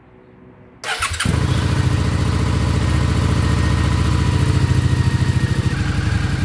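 Suzuki SV650's V-twin engine starting, catching about a second in and settling into a steady idle with an even, fast pulsing beat. It is being run to circulate and warm freshly changed oil.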